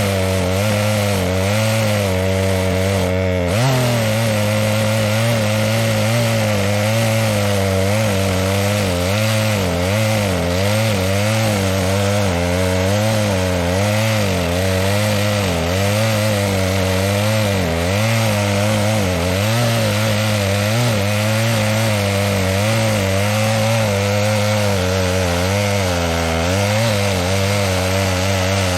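Two-stroke chainsaw running at high speed while cutting into a tree trunk, its engine pitch rising and falling as the bar is worked in the cut. The chain is dull, which the owner admits.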